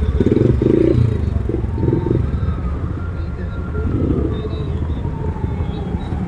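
A vehicle's engine running with a steady low rumble, a faint whine slowly rising and then falling over it.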